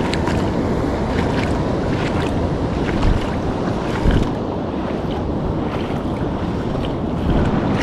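Steady wind rushing over the microphone with surf washing on the reef, and a few faint clicks.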